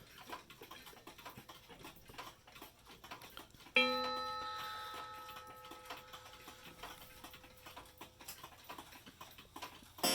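Seth Thomas clock movement's striking hammer hitting its gong once about four seconds in, the tone ringing on and slowly dying away, with a second strike right at the end. It is the only one of the movement's two hammers that still strikes. Faint light ticking comes before the first strike.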